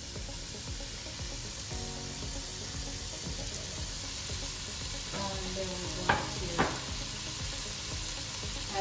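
Chopped onions, bell peppers and broccoli sizzling in sesame oil in an enameled cast-iron pot while a wooden spoon stirs them. Two sharp knocks about half a second apart come a little past the middle.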